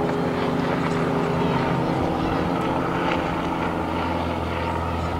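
Steady drone of an engine, a continuous even hum with several overtones; the low end grows a little stronger past the middle.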